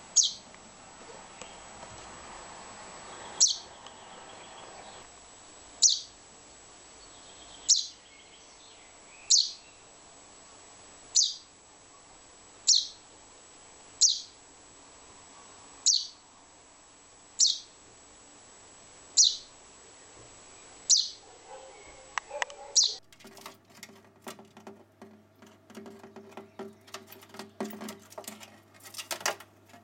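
Chaffinch fledgling calling for its parents: about thirteen loud, short calls, each sweeping down in pitch, repeated every one and a half to two seconds. Near the end the calls stop and a quick run of small clicks and taps follows over a low hum.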